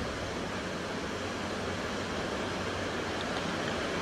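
Steady rushing noise of ocean surf and wind, with wind rumbling unevenly on the phone's microphone.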